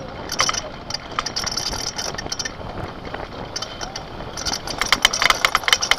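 Gravity cart rolling fast downhill on asphalt: a steady rush of wheel and road noise with clattering rattles from the cart, busier and louder near the end.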